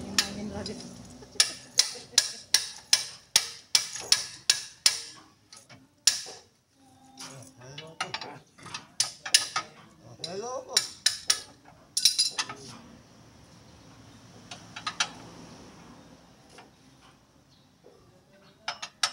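Ratchet wrench clicking in a steady run, about three clicks a second, for a few seconds, then stopping. Scattered metal clicks and clanks of hand tools follow.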